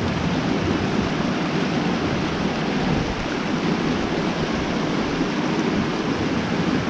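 Steady rush of a small creek's flowing water, an even, unchanging hiss.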